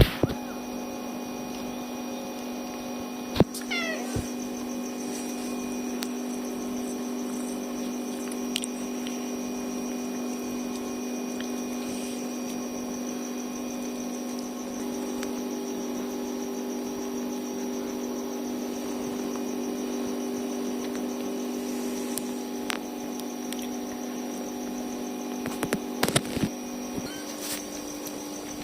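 A kitten mews once about four seconds in, over a steady hum that runs throughout. A few sharp clicks or knocks sound just before the meow and again near the end.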